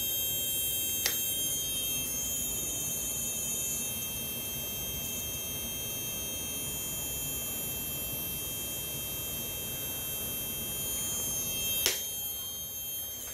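Automotive relays in a test circuit buzzing steadily as they switch rapidly, with a thin high whine over a low hum. Two sharp clicks, a faint one about a second in and a louder one near the end.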